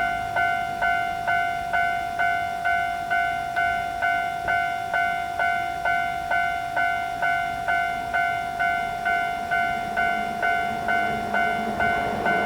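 Japanese railroad crossing alarm ringing its repeated "kan-kan" strokes at about two a second, the warning that a train is approaching. A train's rumble starts to build under it near the end.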